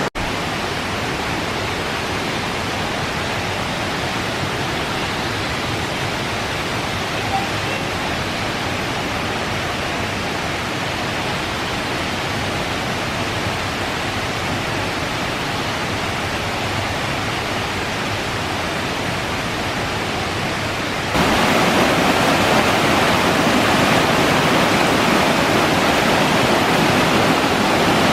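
A waterfall's steady rush of falling, splashing water. It jumps abruptly louder about three-quarters of the way through.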